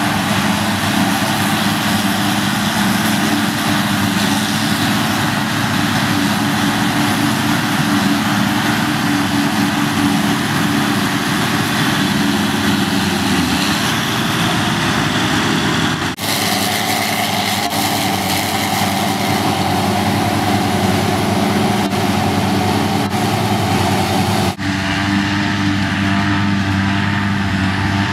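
Diesel engines of silage machinery (John Deere tractors and a forage harvester) running steadily under work. The engine sound changes abruptly twice, about two-thirds of the way through and again near the end.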